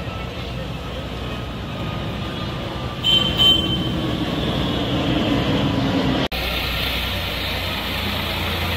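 Steady outdoor rushing noise, with a brief loud high-pitched sound about three seconds in. After a sudden cut, a tractor engine runs with a steady low hum as it drives through floodwater, with water rushing around it.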